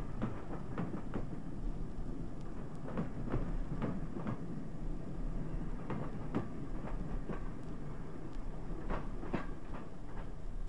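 Steam-hauled train on the former Great Western main line running past, its wheels clicking over the rail joints in groups of two or three over a steady low rumble.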